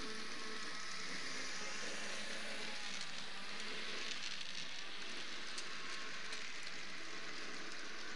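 H0e narrow-gauge model diesel locomotive and its freight wagons running along the track: a steady, even hissing whir of the small motor and wheels on the rails, with a few faint clicks.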